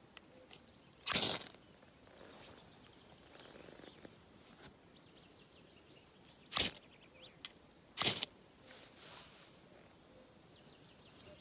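Three sharp cracks, about a second in, then around six and a half and eight seconds in, over a quiet outdoor background with faint bird chirps between them.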